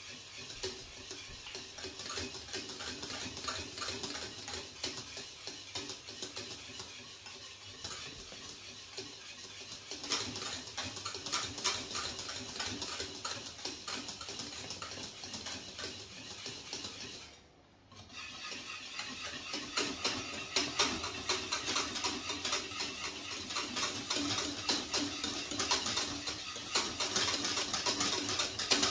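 Wire balloon whisk beating thickening pastry cream in a stainless steel saucepan, its wires rapidly clicking and scraping against the bottom and sides of the pan. The whisking pauses briefly a little past halfway, then resumes louder.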